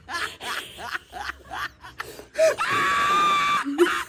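A woman laughing hard in quick repeated bursts, then breaking into one long high-pitched squeal of about a second near the end.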